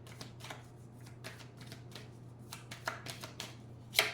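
Tarot cards being shuffled and handled: a run of light, irregular flicks and taps, with one sharper snap of a card just before the end. A faint steady low hum lies underneath.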